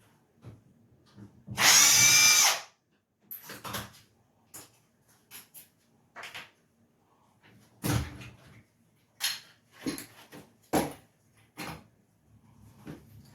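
A power drill runs in one burst of about a second, unscrewing the old deadbolt, followed by a series of scattered clicks and knocks as the lock hardware is handled.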